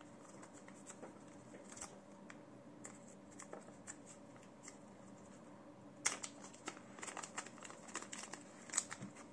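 Small packet of spare watch lugs and screws being opened and handled: faint rustling and crinkling with light clicks, busier and louder from about six seconds in.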